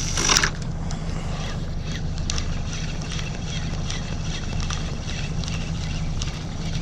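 An engine running steadily at low speed, a low even hum, with a short rush of noise in the first half second and faint clicks over it.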